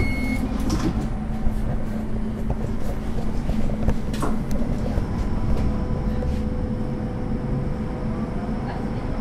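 A 1987 Duewag/Kiepe B80D Stadtbahn light-rail car running with a steady low rumble. A short high beep sounds right at the start, a few clicks and knocks follow, and a faint steady whine comes in about halfway through.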